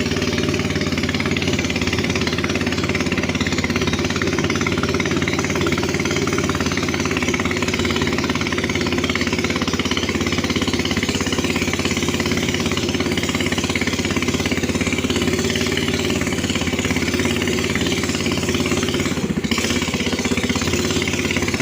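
A boat's engine running steadily at cruising speed, a loud, rapid, rattling drone.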